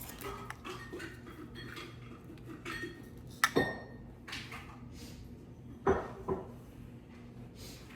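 Small hard kit pieces and containers clinking and tapping on a tabletop as they are handled. A sharper knock comes about three and a half seconds in, and two more just before halfway through the second half.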